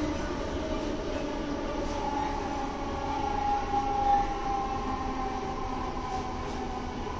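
Electric train running, heard from inside the passenger carriage: the steady whine of the traction equipment over the rumble of the wheels on the track. One tone swells louder about halfway through.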